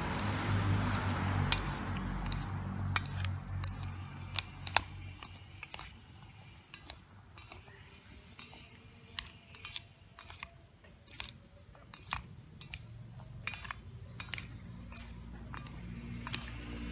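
Chopsticks clicking and tapping irregularly against a stainless steel mixing bowl as they toss flour-coated long beans with egg. The taps are denser and louder in the first few seconds.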